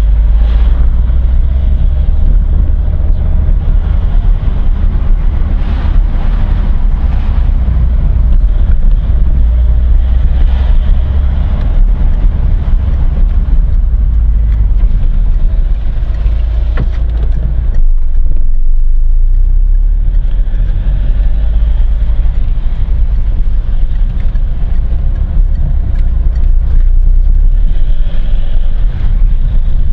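Car driving along a town street, heard from inside the cabin: a steady low rumble of engine and tyre noise that eases briefly about two-thirds of the way through.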